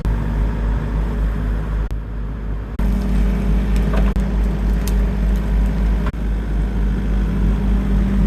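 A 35,000 lb excavator's diesel engine running steadily under work, with its sound shifting about two to three seconds in and a few faint knocks from the machine.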